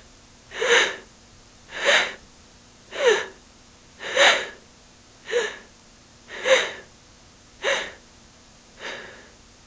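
A woman panting out of breath: eight heavy, rhythmic breaths about one a second, the last one weaker.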